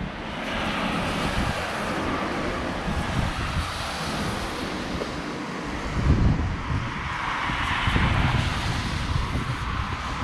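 Vehicles passing on a road, their tyre noise swelling and fading twice, with wind buffeting the microphone.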